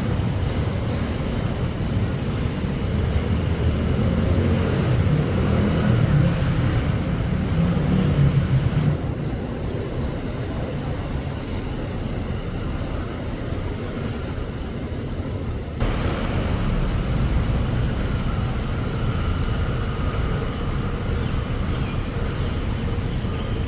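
Gusty wind and heavy rain, a steady rush with low rumbling gusts that build about a third of the way in. The sound turns abruptly duller about 9 seconds in and returns just as abruptly about 16 seconds in.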